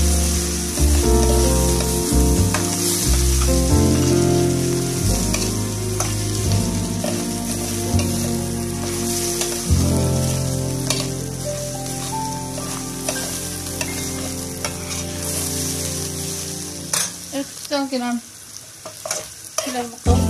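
Rice and orzo sizzling as they fry in a stainless steel pot, stirred and scraped with a metal ladle. This is the stage of toasting the grains in fat for pilaf.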